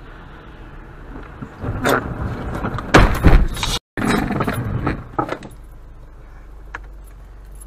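A car sliding off a snowy road and ploughing into a snowbank, heard from inside the cabin: a loud rushing scrape builds from about a second and a half in, with heavy thuds and rattling around three seconds in as snow is thrown over the windshield. The noise dies away about five and a half seconds in, leaving a low steady hum.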